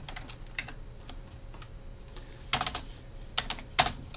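Typing on a computer keyboard: irregular key clicks, with a couple of louder strokes about two and a half and nearly four seconds in.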